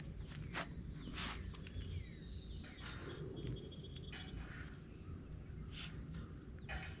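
Scattered scuffs and light knocks over a low steady rumble, with a few faint, thin high chirps.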